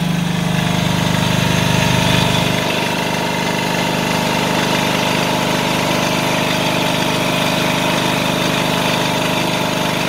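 Generator set's engine running steadily with a constant hum. About two and a half seconds in, the lowest part of its note drops away slightly.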